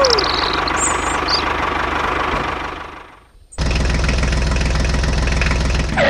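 Tractor engine running, fading out about three seconds in. After a brief gap, a diesel tractor engine starts idling with a steady knock.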